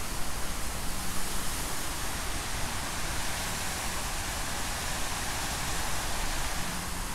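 A steady rushing hiss spread across all pitches, with an uneven low rumble underneath.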